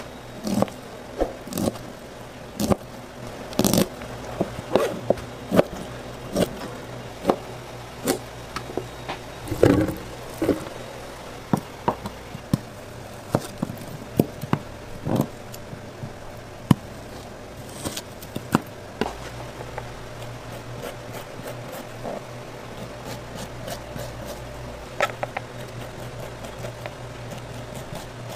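A kitchen knife chopping on a plastic cutting board: sharp single knocks, about one or two a second in the first half and fewer later, over a steady low hum.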